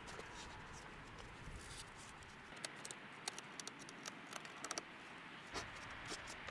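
Faint scattered clicks and light handling noises over a steady low hiss.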